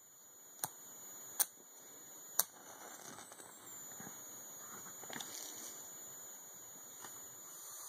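Three sharp clicks in the first two and a half seconds, then a faint rustle about five seconds in, over low steady hiss.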